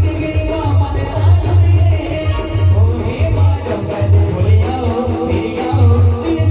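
A band playing a song: a melody line over a heavy, steady bass drum beat.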